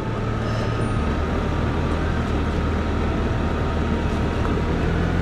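Small 50cc moped engine running at low revs while riding slowly downhill, its note dropping slightly about a second in, under a steady rush of wind and road noise.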